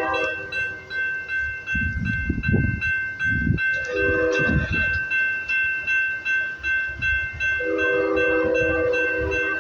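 GP60 locomotive's hybrid air horn sounding three blasts: one ending just after the start, a short one about four seconds in, and a longer one near the end. Under it the passing train rumbles, with a steady high ringing tone throughout.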